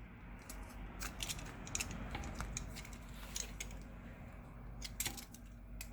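Faint, scattered small clicks and light scraping as a cutter blade trims double-sided adhesive tape along the edge of a phone's frame.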